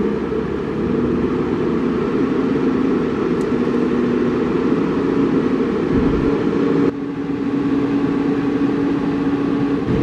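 Heavy diesel truck engine running steadily under load, its pitch stepping up slightly a few times.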